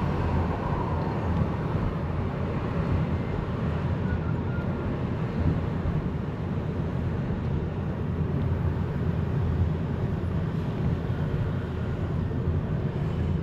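Steady low rumble of a moving road vehicle, heard from inside.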